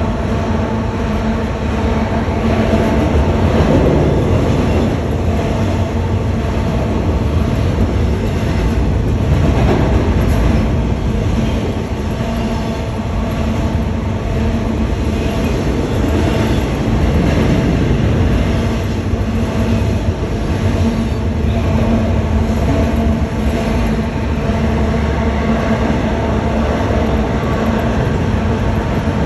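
CSX double-stack container freight train passing at speed: a loud, steady rumble of steel wheels on the rails.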